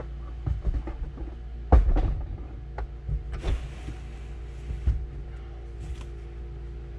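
2018 Honda Accord's rear seatback being unlatched and folded down: a series of clicks and knocks, the loudest clunk about two seconds in, then rubbing and a few lighter knocks.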